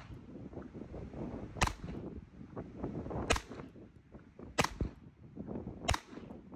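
Four single shots from a Ruger Mark IV Lite .22 LR semi-automatic pistol, fired at an unhurried pace, roughly one and a half seconds apart.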